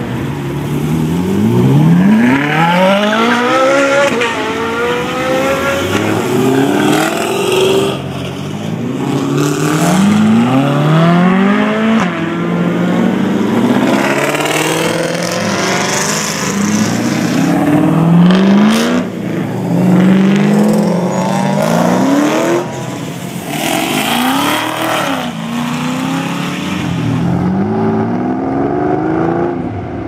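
Several sports and muscle cars, among them a Ferrari 458 Italia and a Ford Mustang GT, accelerating hard one after another. Their engine notes climb in pitch again and again as they shift up through the gears.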